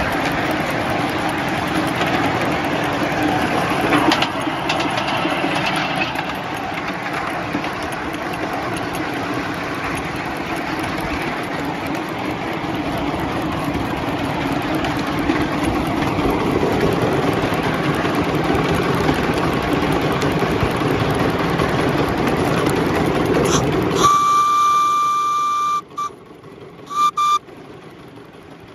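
Sweet Pea 5-inch gauge 0-4-2 live steam locomotive running along the track with a steady rushing noise. About 24 seconds in, its whistle blows one long blast followed by a few short toots near the end.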